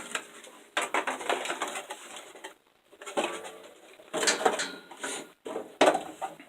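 Metal tools and steel parts being handled and set down on a workbench: irregular clatter and clicks in short clusters, with brief pauses.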